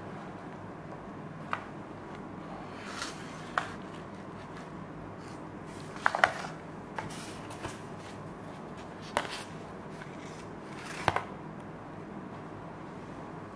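A knife cutting and lifting a slice of quiche with a crumbly pine-nut crust: scattered short crunches and scrapes on the baking paper underneath, loudest about six seconds in as the slice comes away, over a steady low hiss.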